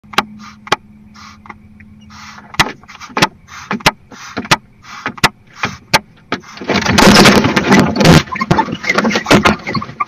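Barn owls in a nest box giving short hissing calls between sharp clicks, then from about seven seconds a loud, harsh burst of calling close to the microphone.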